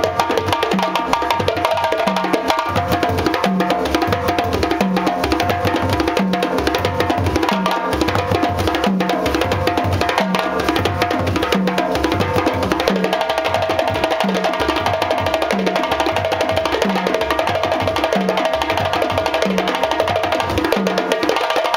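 Djembe ensemble drumming: several djembes struck with bare hands in dense, fast patterns, a djembe solo over accompaniment, with a drum played with sticks alongside. A steady low beat lands about twice a second under the quicker strokes.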